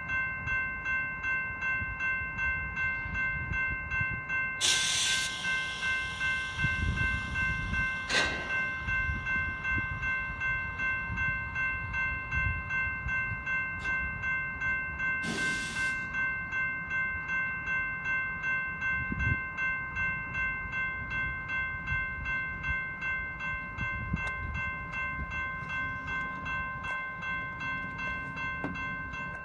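Railroad grade-crossing bell ringing steadily, about two strokes a second, over the low rumble of a freight train rolling slowly through the crossing. Two loud bursts of hiss come about five and fifteen seconds in.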